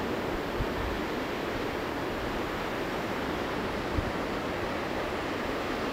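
Steady rushing wind noise on the camera microphone, with an unsteady low rumble and a brief low bump about four seconds in.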